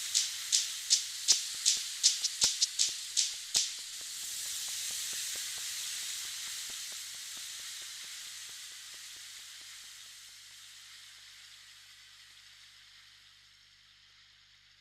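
End of a downtempo electronic instrumental track. A quick pattern of sharp, high percussion clicks stops about four seconds in. A hissing noise wash is left behind; it swells briefly, then slowly fades out.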